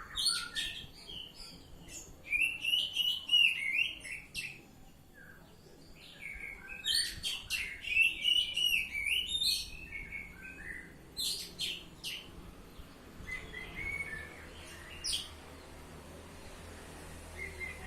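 Oriental magpie-robin (kacer) singing in loud bursts of quick, varied phrases mixed with sharp high notes. Two long bursts come a few seconds apart, then shorter phrases, and it goes quieter near the end.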